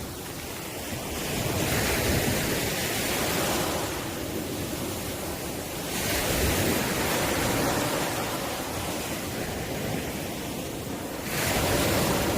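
Ocean waves breaking and washing in, the surf swelling three times, about every four to five seconds.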